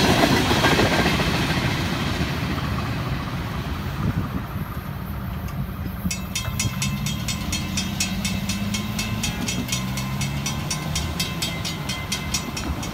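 The last freight cars of a train roll past, wheels clacking on the rails, and the noise fades away over the first few seconds. About halfway through, a railroad crossing bell starts ringing fast and evenly as the gates begin to rise.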